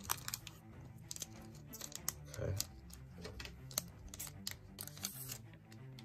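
Light clicks and crinkles of a foil trading-card booster pack being pulled from its display box and handled, over quiet background music.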